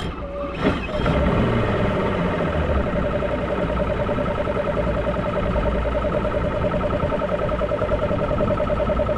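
Bass boat outboard motor idling, a low rumble under a steady, rapidly pulsing whine that comes in about a second in. The owner believes the lower unit has just blown.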